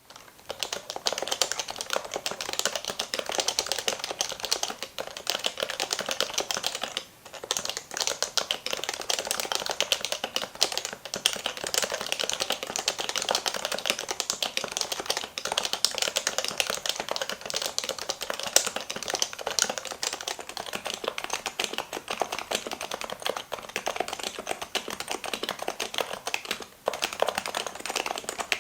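Fast, continuous typing on an unlubricated HHKB Professional 2 keyboard with Topre capacitive switches, a dense run of key strokes that pauses briefly twice.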